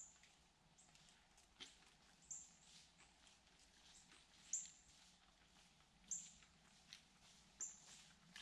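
Faint woodland quiet with a small bird repeating a short, high, thin call note about every one and a half to two seconds, and a few faint ticks in between.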